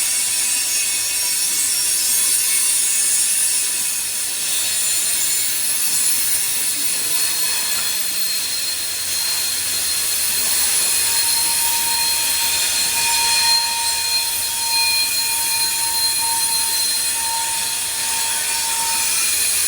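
Canadian National freight train's wheels screeching against the rails as the cars roll past: a loud, steady, shrill squeal made of several high tones, with a further tone coming in about halfway through.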